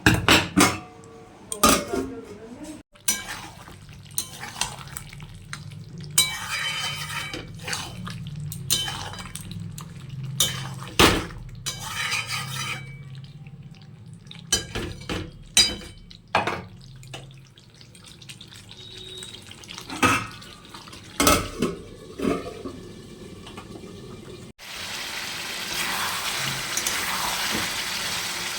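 Metal utensils clinking, knocking and scraping against pots and dishes in a kitchen, over a low hum. Near the end, water starts running steadily.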